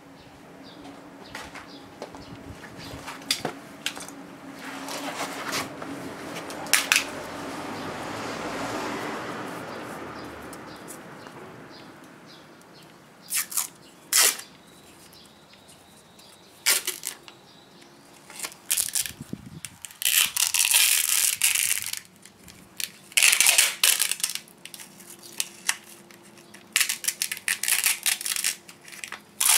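Plastic tape being pulled off its roll in several loud, hissy ripping pulls in the second half as it is wound around a wooden disc, with short handling clicks and knocks in between. In the first half a broad rushing noise swells up and fades away.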